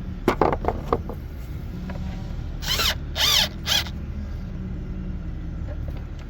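Cordless driver run in three short bursts, about two and a half seconds in, tightening the screws of an inline fuse holder; a few light clicks of metal handling come first.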